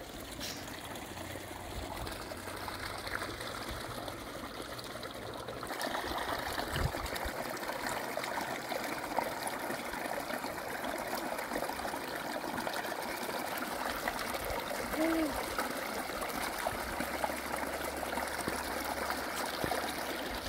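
Water running and trickling steadily, growing louder about six seconds in.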